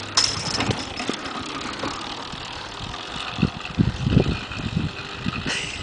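A stock 60cc two-stroke engine on a motorized bicycle being pedal-started. It coughs and pops irregularly a few times around the middle without settling into a steady run, because it has sat unused.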